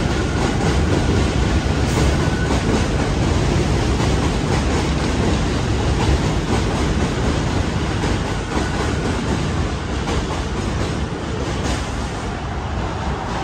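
R160 subway train running away along the bridge tracks: a dense rumble of wheels on rail with many quick clicks, easing off over the last few seconds as it recedes.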